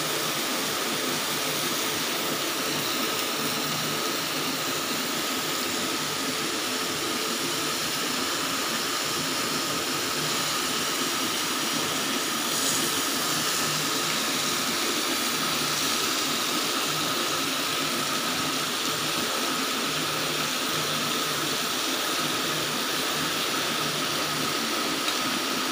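Chicken and vegetables sizzling steadily on a hot griddle pan over a portable gas stove.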